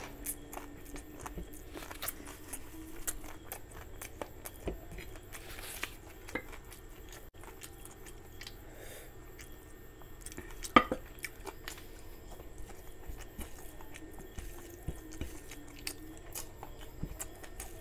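Close-miked eating sounds: chewing a mouthful of rice and chicken curry, and rice being mixed with gravy by hand, with many small clicks throughout. One sharp knock about eleven seconds in.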